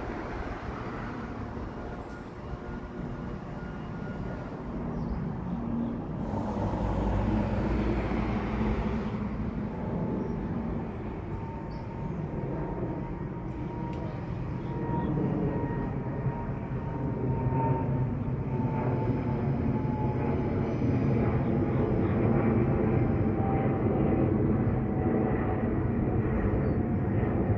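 Freight train rolling by on a far track: a steady low rumble of wheels on rail that grows louder in the second half. A brief rush of noise comes about six seconds in, and a faint thin tone sounds for a few seconds around the middle.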